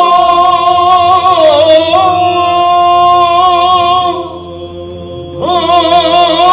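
Monks' voices singing Byzantine chant in long held notes over a steady low drone (the ison). The singing drops away about four seconds in and the voices come back in about a second and a half later.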